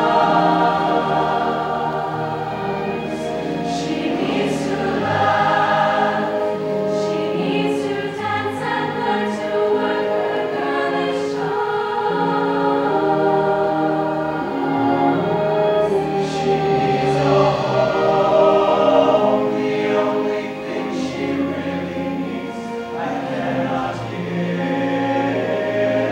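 Mixed-voice high-school show choir singing in sustained, chordal harmony.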